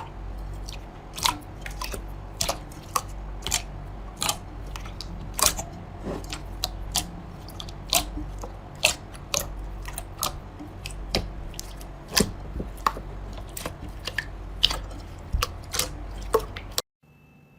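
Slime being squeezed and pressed by hand, giving irregular sharp pops and crackles over a steady low hum. It stops abruptly near the end.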